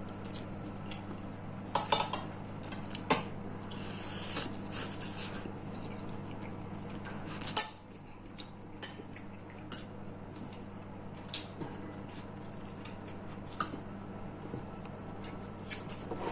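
Spoon and fork clinking and scraping against plates while eating, in scattered light clinks with one sharper clank about halfway through. A steady low hum underneath cuts off just after that clank.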